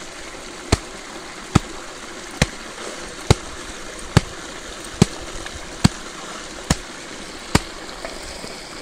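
Stream water running over rocks, with a sharp knock or slap repeating evenly a little more than once a second, stopping near the end.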